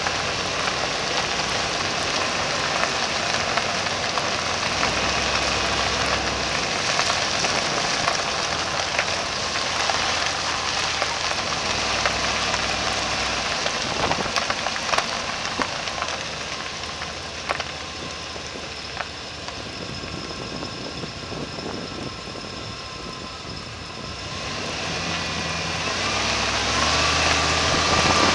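Driving noise picked up by a camera mounted outside on the front plow frame of a 1992 Chevy Suburban: a steady rush of wind and road noise with the truck's running gear underneath. It eases off for a few seconds past the middle, then grows louder near the end as the truck picks up speed.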